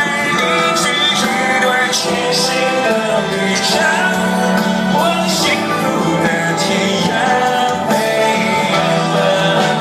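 Live rock band playing a song with a male lead vocal over guitars, bass and drums, with cymbal hits every second or so, recorded from within a large outdoor crowd.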